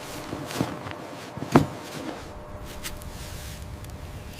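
A few short, soft knocks over a low steady hiss, the loudest about one and a half seconds in.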